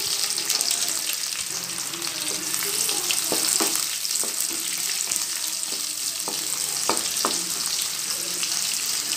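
Shallots, garlic cloves and curry leaves sizzling steadily in hot oil in a steel kadai, with a spatula scraping and knocking against the pan now and then as they are stirred.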